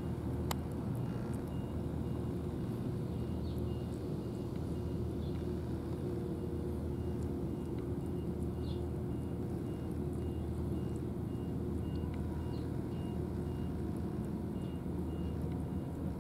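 Steady low rumble of a large vehicle's engine, with a reversing alarm beeping faintly about twice a second. A single sharp click about half a second in.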